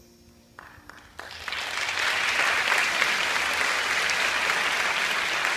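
Audience applause: a few scattered claps about half a second in, swelling within a second or two into steady, full clapping.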